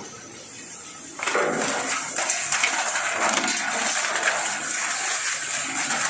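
Fatka machine (rag and cotton-waste opener) running, its beater drum thrashing rags fed through the hopper against a perforated screen. It becomes a loud, steady rushing noise that starts abruptly about a second in.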